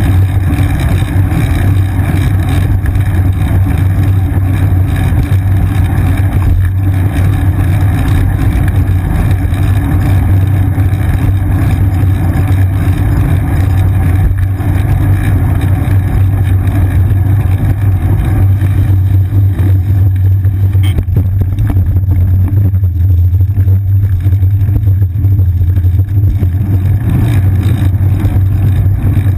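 Steady, loud riding noise from a GoPro Hero 2 mounted on the seat of a moving bicycle: a low hum of wind and road vibration with a hiss above it.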